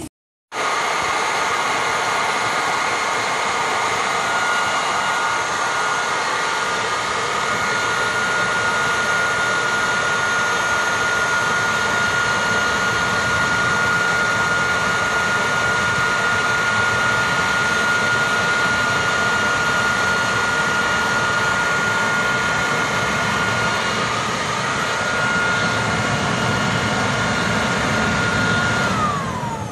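Corded electric leaf blower running steadily with a high whine as it blows air into a fire pit. Near the end the whine falls in pitch as the motor winds down.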